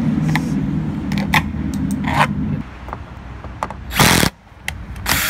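Power drill running steadily at low speed, backing out a recessed door trim panel screw, then stopping about two and a half seconds in. A few small clicks follow, then a short loud burst of noise near four seconds in.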